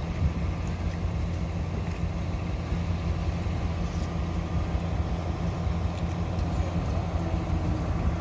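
Boat engine running steadily, a continuous low drone.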